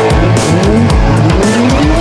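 Drift cars' engines revving hard again and again, pitch climbing with each rev, with tyres squealing as the cars slide, over loud music with a pounding bass beat.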